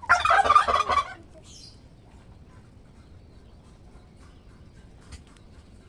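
A bird's loud, rough call lasting about a second, then quiet with a few faint clicks.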